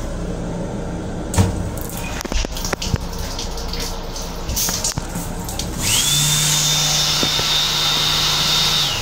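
Faucet of an M7 railcar restroom sink running, with a few clicks and knocks. About six seconds in, the electric hand dryer built into the same unit starts: a quick rising whine that settles into a loud, steady high whine over a low hum.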